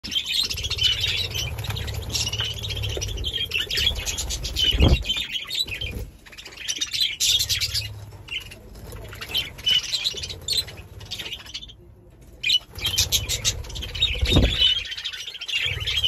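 A flock of budgerigars chattering and chirping in a continuous warbling twitter. Wings flutter as birds fly close past, with low thumps twice. The chatter dips briefly about twelve seconds in.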